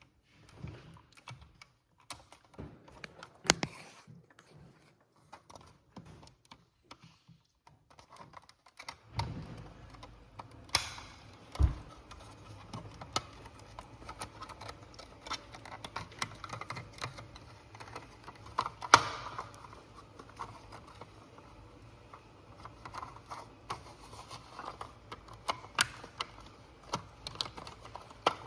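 Irregular plastic clicks and taps, a few of them sharper and louder, from a smoke detector's battery compartment being opened and its battery worked out by hand.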